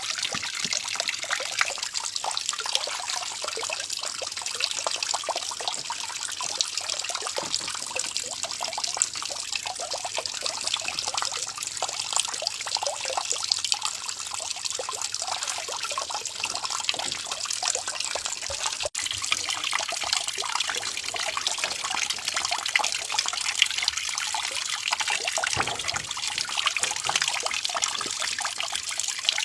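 Water trickling and splashing steadily, with a momentary break about two-thirds of the way through.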